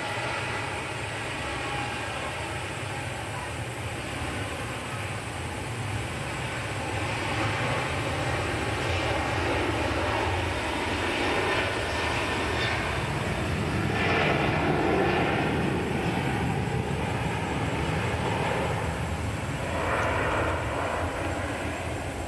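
Jet engine noise from a Boeing 737-900ER's CFM56-7B turbofans as the airliner moves along the runway. It is a steady roar that grows louder about a third of the way in and eases off near the end.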